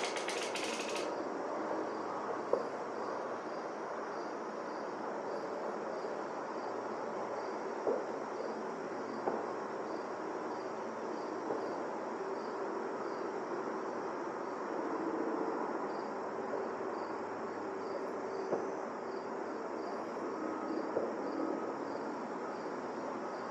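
Insects chirping in a faint, regular pulse, high above a steady outdoor hum, with a few soft clicks.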